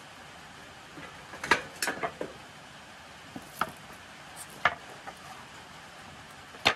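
Weathered pallet-wood slats being pulled out of a welded metal frame and dropped onto a stack: a string of sharp wooden clacks and knocks, several together around two seconds in, then single ones a second or so apart.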